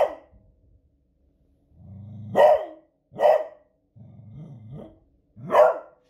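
A beagle barking in alarm at fireworks noise: four short, loud barks, with a low growl running into the second bark and another low growl between the third and fourth.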